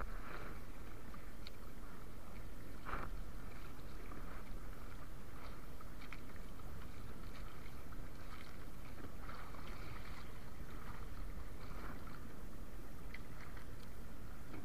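Sea water lapping and splashing against a small wooden outrigger fishing boat over a steady low rumble, with a couple of louder splashes, one near the start and one about three seconds in.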